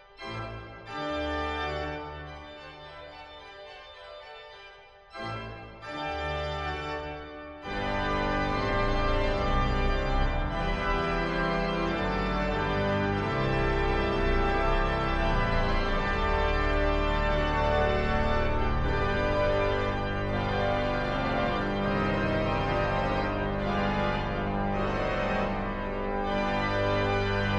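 Organ music: a few separate held chords with short pauses between them, then from about eight seconds in fuller, louder sustained chords.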